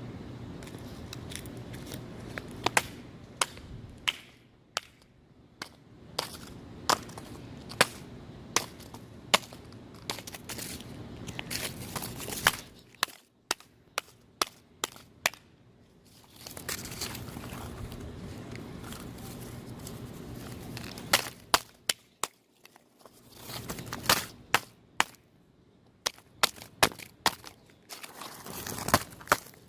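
A stick repeatedly whacking a cardboard model camcorder: dozens of sharp hits at uneven spacing, coming in quicker flurries toward the end.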